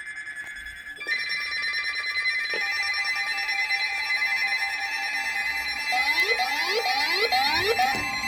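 Emergency alert tones for a tornado warning: a short two-tone sound, then about a second in a dense cluster of steady, piercing alarm tones. Near the end, five rising chirps repeat about twice a second.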